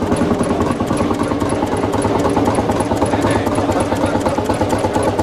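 Old tractor engine running steadily at idle with a fast, even beat.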